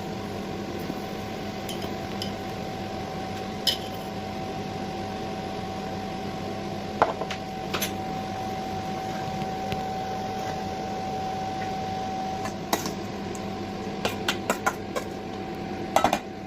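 A small electric kitchen appliance motor running steadily with a constant hum, with sharp clinks of metal against a dish, most of them near the end.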